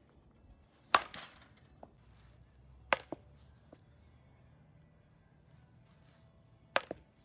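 Softball bat hitting pitched softballs: three sharp cracks, the first the loudest with a short ring after it, the second and third each followed closely by a smaller knock.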